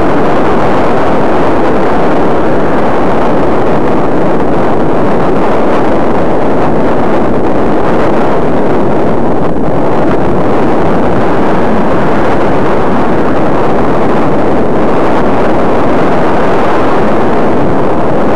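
Loud, steady rushing of wind on the microphone of a glasses-mounted camera while riding a bicycle.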